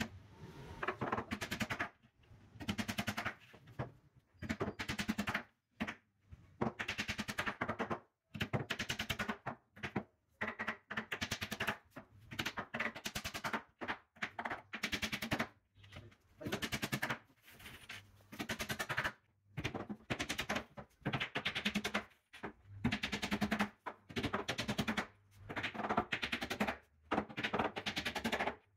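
Hammer driving small nails through a plywood base panel into the edge of a block-board bed box frame. It comes in rapid runs of taps, each about a second long, with short pauses between.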